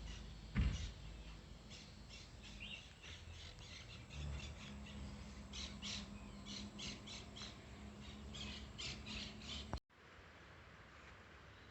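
Birds chirping and squawking in clusters of short, high calls over a faint low steady hum. There is a thump about half a second in, and the sound cuts off abruptly near the end.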